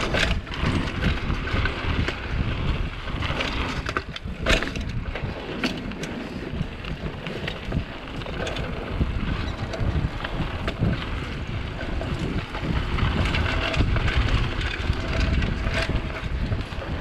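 Wind buffeting an action camera's microphone during a bicycle ride, with sharp knocks and rattles from the bike going over bumps; the loudest knock comes about four and a half seconds in.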